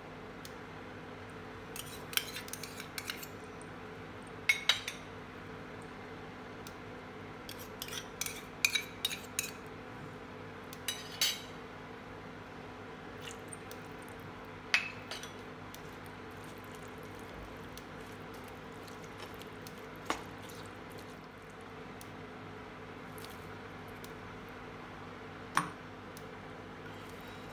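A metal spoon clinks and scrapes against a non-stick frying pan while vegetables in tomato sauce are stirred. The clinks come in clusters in the first half, then as a few single knocks, over a steady low hum.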